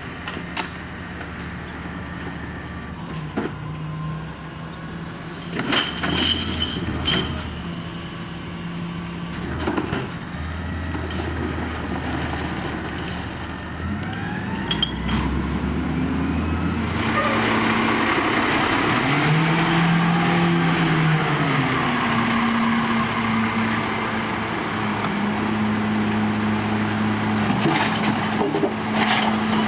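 Garbage truck at work: its diesel engine changes pitch, rising and falling for a few seconds past the middle, with several sharp metallic knocks and bangs. A loud steady rushing noise comes in suddenly a little past halfway.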